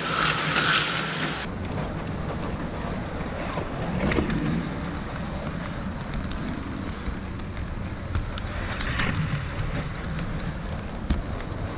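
HO scale model train, led by a B&O EMD diesel locomotive model, running along the track close by with a steady rumble and scattered light clicks. A brighter hiss in the first second and a half cuts off suddenly.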